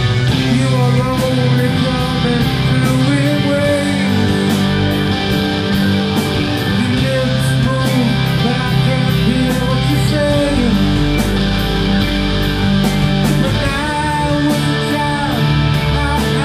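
A live rock band playing: electric guitars, bass, keyboard and a drum kit with steady cymbal strokes, and a male vocalist singing into a handheld microphone.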